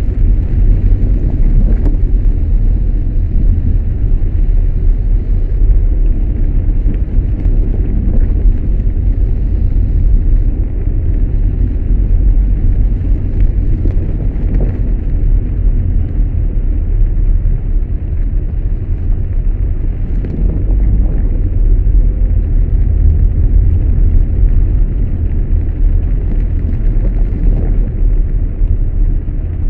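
Steady loud low rumble inside a car cabin while driving in heavy rain on a waterlogged road: engine and tyre noise mixed with rain and water on the car's body.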